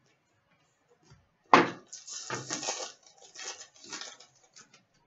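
Trading cards being handled: a sharp tap about a second and a half in, then about three seconds of rustling and flicking as cards slide against one another, with many small ticks.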